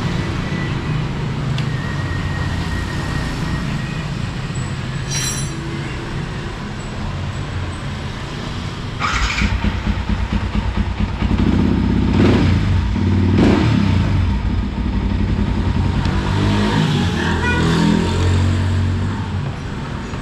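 Yamaha WR155R's 155 cc single-cylinder engine idling, getting louder about nine seconds in, with two quick revs a few seconds later.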